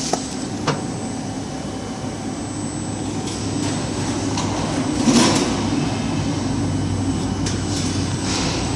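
Steady running of workshop machinery, a constant low hum under a broad mechanical noise, with two short clicks in the first second and a brief louder rush about five seconds in.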